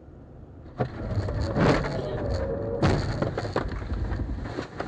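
Car collision heard from a dashcam: a sudden bang about a second in, then clattering and crunching under a held wavering tone, and a second heavy bang about three seconds in followed by more knocks and rattling.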